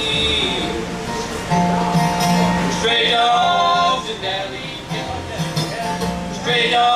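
Bluegrass band playing live: banjo, mandolin, acoustic guitar and upright bass playing together.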